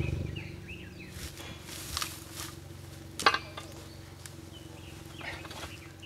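Suzuki Jimny JA11's engine idling steadily after a louder run drops away at the very start, with a few sharp clicks and knocks over it, the loudest about three seconds in.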